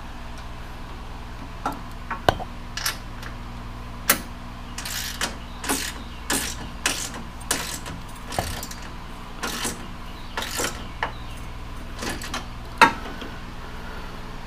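Socket ratchet wrench tightening a bolt on a steel trailer frame: short, irregular bursts of clicking as the handle is worked back and forth, with a sharper clack near the end. Under it runs the steady hum of an Air King fan.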